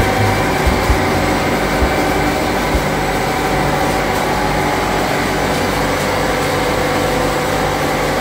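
Sawdust pellet production line running steadily: electric motors, the pellet mill and the pneumatic conveying fan give a continuous hum with several steady tones. A few low knocks come in the first three seconds.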